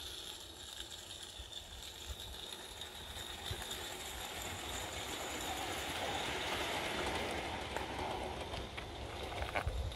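A 16mm-scale garden railway train, a small loco hauling coaches, running along the track and over a metal girder bridge, its wheels rattling on the rails. The rattle grows louder toward the middle and eases off near the end, with a couple of sharp clicks.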